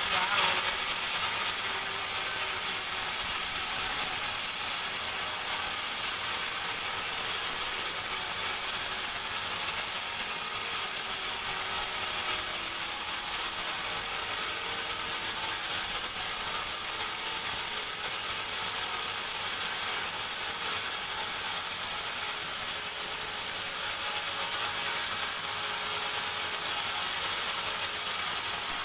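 Large sawmill band saw running steadily through a teak beam, a continuous even mechanical hiss.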